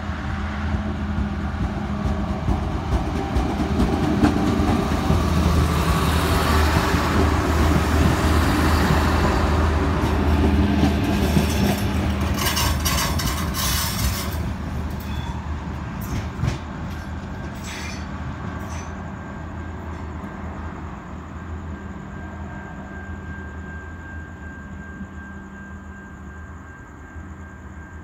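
Diesel railcars' Mercedes OM444 V12 engines working as the train pulls away from the platform. The drone builds as the cars pass close by, and the wheels click over rail joints partway through. It then fades steadily as the train recedes.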